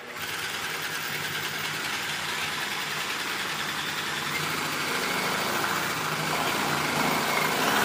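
Power drill running steadily, its bit cutting into a pre-drilled hole in a bamboo tube to angle the hole so that an internal cable tube can enter more gently. The drill gets a little louder near the end.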